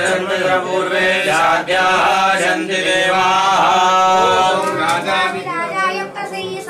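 Voices chanting Hindu Sanskrit mantras in a sing-song melody, with long held notes about halfway through.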